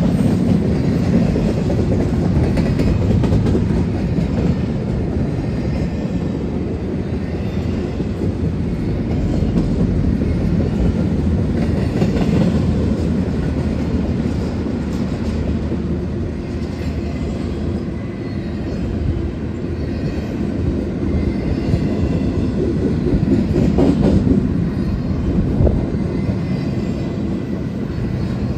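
Freight train of covered hopper cars rolling past: a steady rumble of steel wheels on rail, with repeated clicks as the wheels pass over the rail joints.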